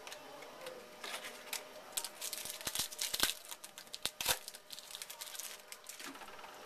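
Trading-card pack wrapper being torn open and crinkled: a stretch of crackling, rustling noise with a few sharp snaps in the middle, starting about a second in and dying away near the end.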